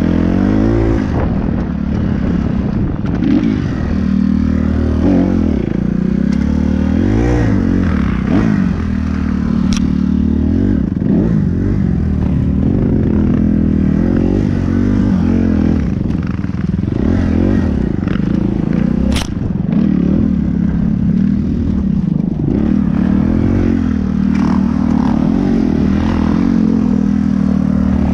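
Kawasaki 250cc dirt bike engine, heard close up from the rider's helmet camera, revving up and down again and again as the rider accelerates, shifts and backs off over rough trail. Two sharp clicks cut through, about ten seconds in and again near nineteen seconds.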